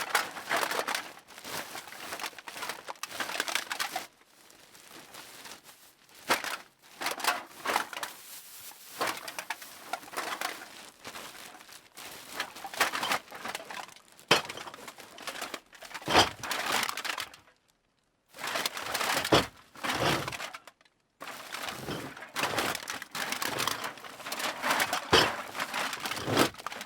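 Empty aluminium cans clattering and knocking together in a series of separate takes, with short pauses between them.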